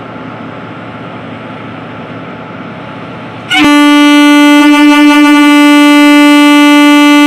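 Electric locomotive horn giving one long, loud, steady departure blast, starting sharply about three and a half seconds in, over the steady hum of the locomotive standing at the platform.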